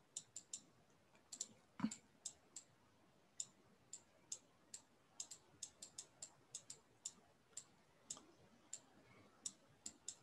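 Faint, irregular light clicks, two or three a second, from the pen input as branches and numbers are handwritten on a digital whiteboard. One duller knock comes about two seconds in.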